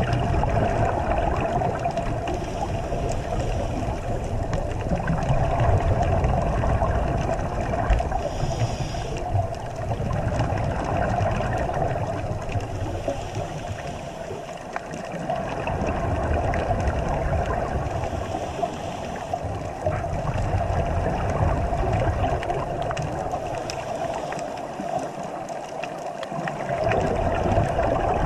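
Underwater ambience picked up by a camera in its waterproof housing: a muffled low water rumble that swells and fades, under a steady mid-pitched hum.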